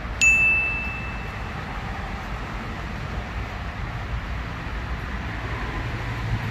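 A single bright chime ding about a quarter of a second in, ringing on one clear tone for about a second. Then steady outdoor background noise with a low rumble while walking with the camera along a dirt path.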